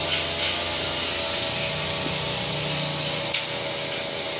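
Steady machine hum and hiss of workshop background noise, with a few light clicks and scrapes as the metal cover of a fuel injection pump timer is pressed into its housing by hand.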